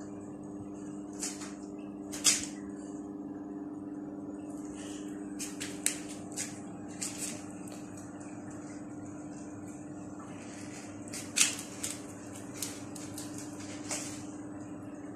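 Cats scratching and shifting in granular cat litter in plastic litter boxes: short, scratchy rustles at irregular intervals, the loudest about two seconds in and near the middle. A steady low hum runs underneath.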